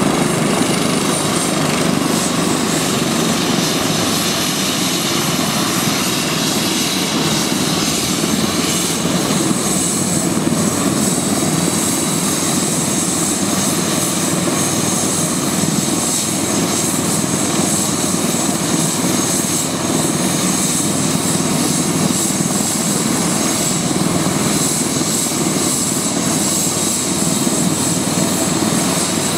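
Helicopter running on the ground after landing, its main rotor turning: steady rotor noise with a high turbine whine.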